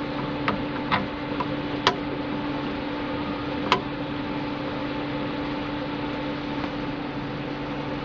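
A few short, sharp clicks and taps of hand-tool work on a car door's latch parts and screw, about five in the first four seconds, over a steady hum with a constant tone.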